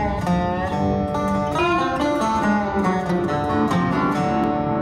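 Background music led by plucked acoustic guitar, with a few notes bending in pitch.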